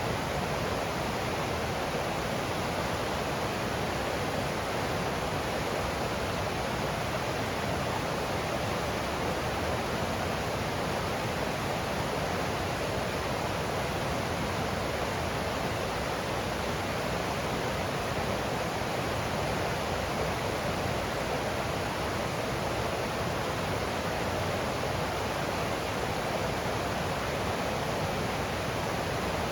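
Water of a forest creek flowing, a steady unbroken rush.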